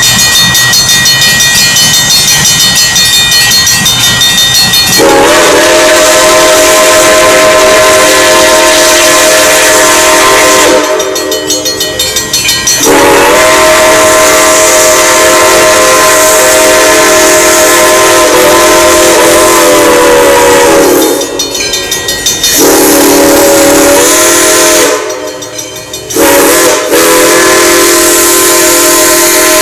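Steam locomotive's chime whistle blowing the road-crossing signal: two long blasts, a short one, and a last long one, each sounding several notes together. The first two blasts rise slightly in pitch as they start.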